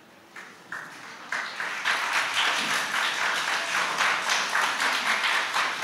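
Audience applause: a few scattered claps that quickly build, within about two seconds, into steady clapping from many people.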